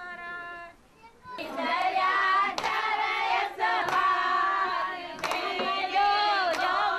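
Women singing, first one voice briefly, then after a short pause a group singing loudly together, with hand claps keeping time about every second and a half.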